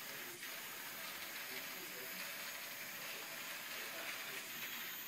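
Steady, even hiss of background room noise, with only faint, indistinct tones underneath.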